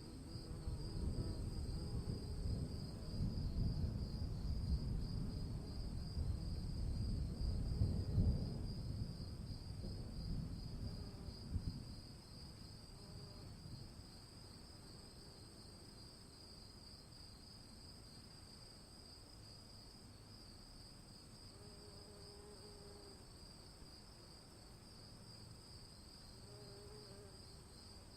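Thunder rolling for about the first twelve seconds, swelling to its loudest near the middle and then fading. Insects trill steadily throughout.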